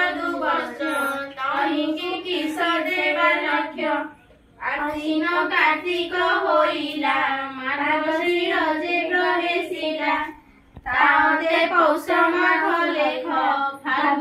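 Women's and girls' voices singing a devotional puja hymn together, in long phrases broken by short pauses about four and ten and a half seconds in.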